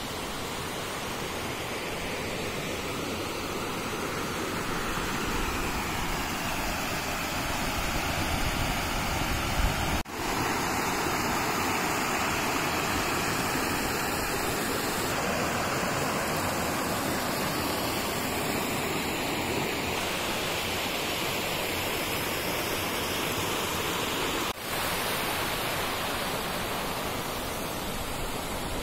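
River water rushing over rocks in shallow rapids, a steady sound of flowing water that breaks off for an instant twice.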